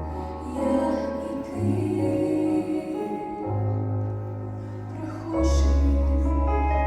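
Slow music with sustained bass notes and chords that shift every second or two, growing louder about five and a half seconds in; singing is heard with it.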